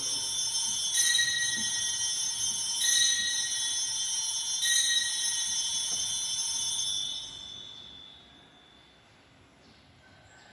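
Altar bells rung four times in quick succession, with bright high ringing that fades away about eight seconds in. This is the ringing at the elevation of the consecrated host.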